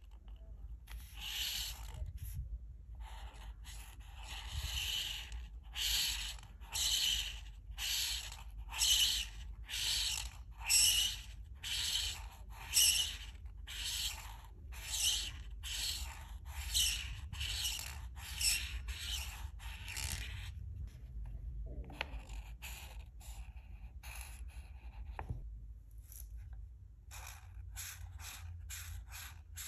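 Alcohol marker tip rubbing across paper in repeated colouring strokes, about one a second, then after a short pause quicker, shorter strokes near the end.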